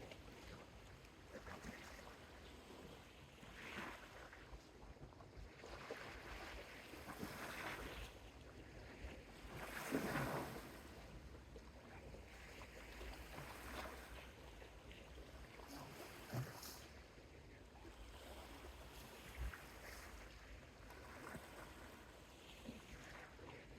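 Soft Mediterranean sea waves washing onto the shore, one wash every three to four seconds, the biggest about ten seconds in.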